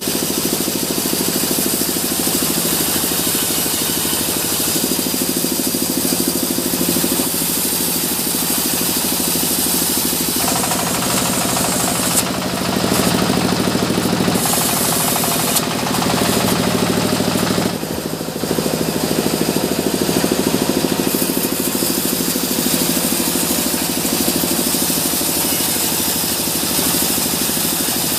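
Sawmill log band saw running steadily. From about ten to eighteen seconds in the sound is fuller and heavier while the blade cuts through a log.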